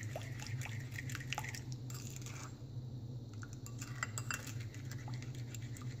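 Purple plastic spoon stirring thick chocolate batter in a bowl, scraping and clicking against the sides in many small irregular ticks, with a steady low hum underneath.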